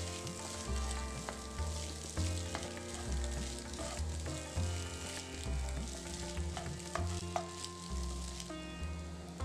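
Wooden spatula stirring and scraping crushed boiled egg and potato masala around a nonstick frying pan, with the oil in the pan sizzling and the spatula clicking against the pan.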